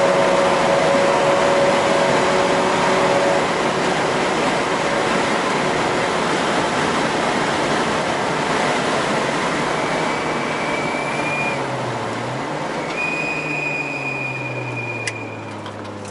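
Mazda RX-8's rotary engine running hard at track speed, heard inside the cabin with heavy wind and road noise. From about twelve seconds in the engine note falls and the sound drops as the car slows into a corner, with a thin high squeal twice near the end.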